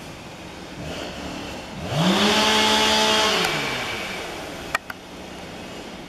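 Two-stroke chainsaw revved up once, about two seconds in. It holds at high speed for about a second and a half, then falls back toward idle. Two sharp clicks follow near the end.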